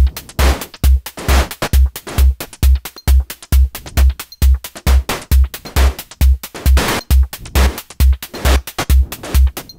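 Looping electronic drum pattern from Reaktor Blocks drum modules in Maschine: a steady four-on-the-floor kick drum, about two beats a second, with hi-hats and an FM snare fed through a delay. The snare's amp decay time is automated, so it opens up into longer tails.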